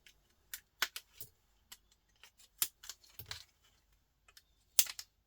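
Irregular sharp clicks and small metal clinks of pliers snapping and prying components off a circuit board, with a few parts dropping. The loudest click comes near the end.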